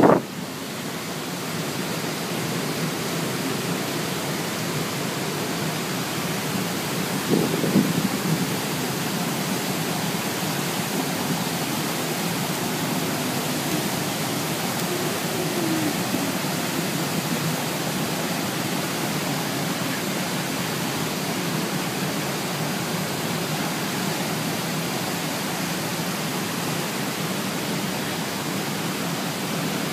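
Steady, even hiss of rushing stream water, with a brief louder rustle about seven seconds in.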